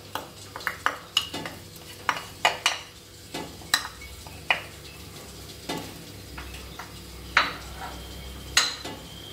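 Wooden spoon tapping and scraping chopped onion out of a plastic bowl into a stainless steel pot: a quick run of sharp knocks in the first few seconds, then a few single louder knocks later on.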